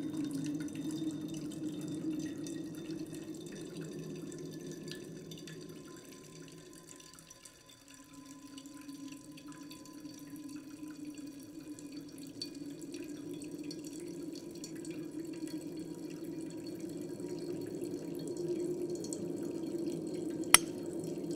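Water dripping over a low, steady hum that fades down about seven seconds in and swells back, with one sharp click near the end.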